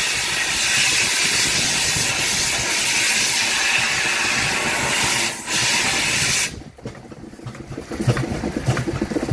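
Steam hissing steadily from a Merryweather self-contained steam fire pump's boiler. About two-thirds of the way through it cuts to the pump's steam engine running with a quieter rhythmic clatter.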